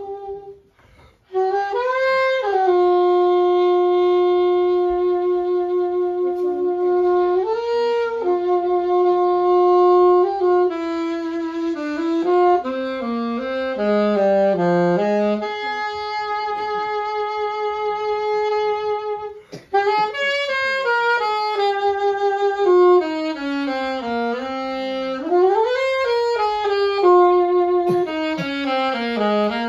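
A solo saxophone played live with no accompaniment. It plays long held notes joined by slides, breaks off briefly about a second in and again past the middle, then moves through quicker stepping notes.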